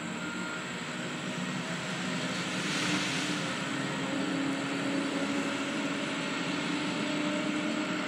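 Heavy logging machine's engine running steadily under load, with a brief surge of hissing noise about three seconds in.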